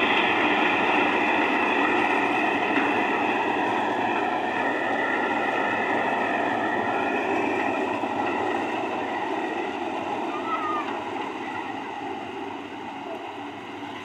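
FM World Ruilong full-feed combine harvester running while it cuts wheat: steady engine and threshing machinery noise with a high whine on top, growing quieter in the second half as the machine moves off across the field.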